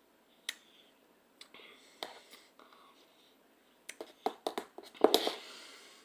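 A metal spoon clicking and scraping against a stainless steel cup while a root beer float is eaten. There are a few scattered clicks, then a quick run of them about four seconds in, and the loudest click comes just after five seconds.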